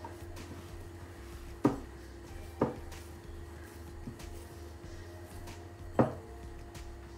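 Dough being kneaded by hand in a glass mixing bowl, the bowl giving three sharp knocks with a short ring about one and a half, two and a half and six seconds in. A steady low hum runs underneath.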